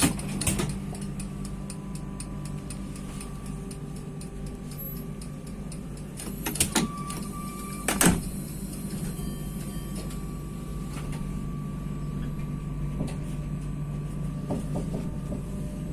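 Z 8100 (MI79) electric train heard from close by, with its equipment humming steadily. A thump comes right at the start, two sharp clunks follow about six and a half and eight seconds in, and a thin steady whistle sounds from about seven seconds on.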